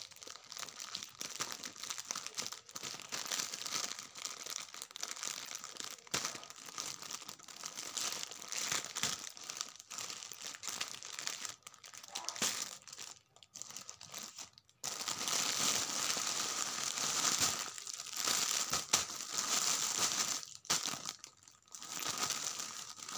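Thin plastic courier mailer bag crinkling and rustling as it is cut open with small scissors and pulled apart by hand, then a clear-plastic-wrapped package crinkling as it is handled. The crinkling is irregular throughout and grows louder and denser about two-thirds of the way in.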